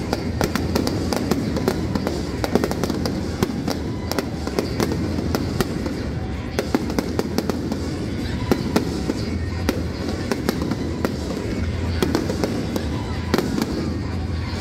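Fireworks display going off in a dense, irregular string of sharp bangs and crackles over a continuous low rumble, with music playing over a loudspeaker system.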